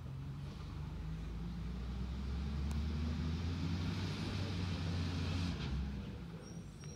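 Garbage truck engine speeding up and holding high revs for several seconds, with a hiss above it, then dropping back near the end.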